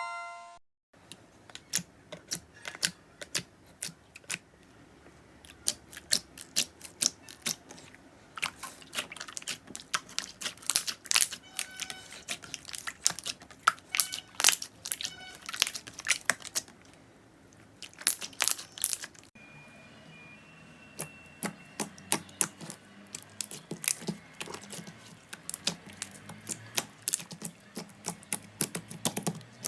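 Slime being pressed and squeezed by hand, giving off irregular crackles and sticky pops, several a second. A short chime rings and fades in the first second.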